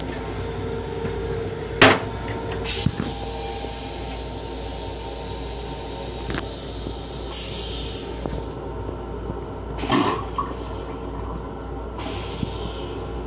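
A toilet seat comes down with a sharp knock, then the stainless-steel toilet in a Long Island Rail Road M7 railcar restroom flushes with a rushing hiss of water for about five seconds, over the steady hum of the train. There is another knock near ten seconds and a shorter rush near the end.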